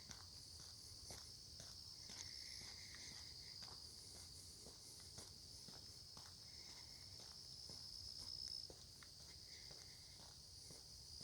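Faint steady high-pitched chorus of insects, with a walker's footsteps on the lane at a slow, even pace of about two steps a second.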